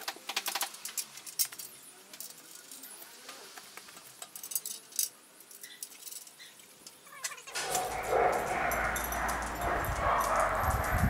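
Light, scattered metallic clicks and rattles, then about seven and a half seconds in a sudden, louder steady noise with a low rumble underneath.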